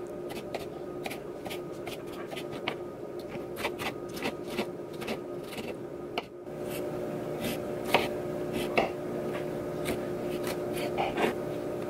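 Kitchen knife dicing a tomato on a wooden cutting board: quick, irregular taps of the blade striking the board.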